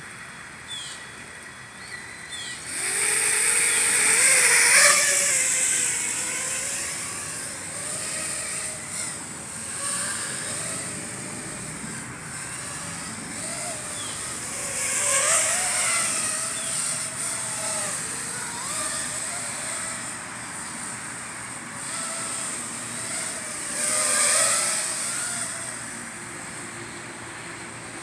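FPV quadcopter motors and propellers whining, the pitch sliding up and down with the throttle. There are loud rushing surges about three seconds in, around the middle, and near the end.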